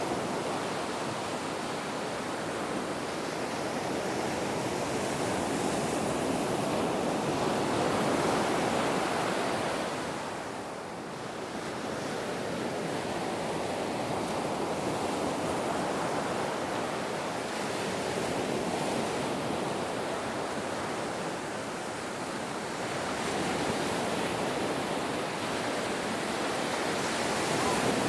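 Ocean surf: a continuous rush of breaking waves that swells and eases, with a short lull about ten seconds in.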